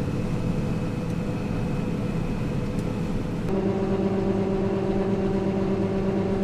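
Combine harvester running steadily while harvesting, heard from the cab. About halfway through, a steady humming tone comes in on top of the machine noise.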